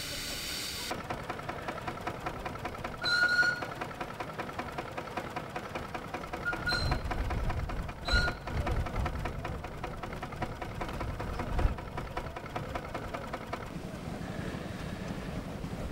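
Miniature steam traction engine running with a steady rhythmic beat, and three short toots of a steam whistle, the loudest about three seconds in and two more around seven and eight seconds. In the first second, a steady hiss of steam that cuts off suddenly.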